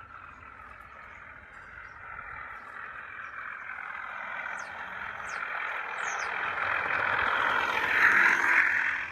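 Garden railway model diesel locomotive running along the track towards the microphone, its motor and gears whirring, growing steadily louder until it passes close by near the end.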